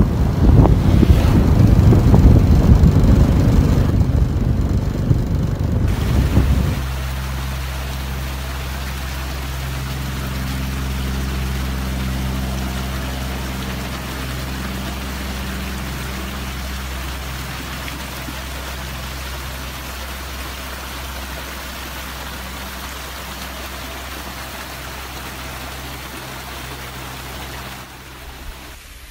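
Wind buffeting the microphone while riding along a road, then from about seven seconds in a vehicle engine idling steadily with a low, even hum that fades away near the end.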